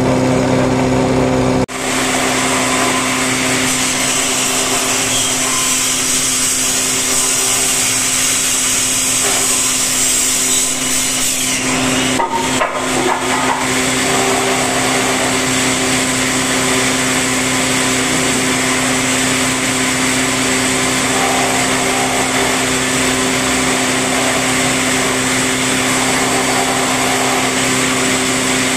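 Horizontal slot-mortising machine running steadily with a constant hum, its rotating bit milling a slot into the edge of a clamped wooden door-frame piece. The sound drops out briefly about two seconds in, then carries on.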